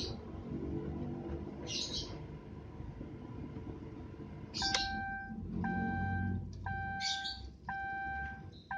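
Timor DOHC four-cylinder engine idling steadily right after a hot start, settling at about 800 rpm. Short bird chirps come every couple of seconds, and from about halfway a pitched beep repeats roughly once a second.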